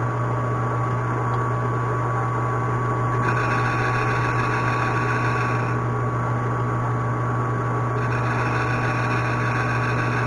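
Metal lathe running with a steady hum while a turning tool takes a light clean-up cut on a part. The cutting adds a higher hiss twice, from about three seconds in and again from about eight seconds in.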